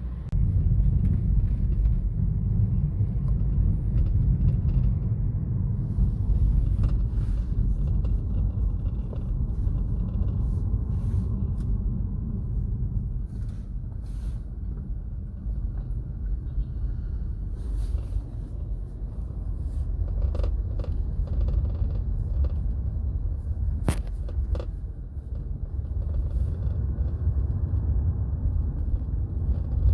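Inside a 2015 BMW 328i on the move: steady low road and cabin rumble with scattered short knocks and rattles, one sharper knock about two-thirds of the way through. The rattle comes from the handbrake cable support bracket, whose retaining clip is loose, so it knocks over every bump in the road.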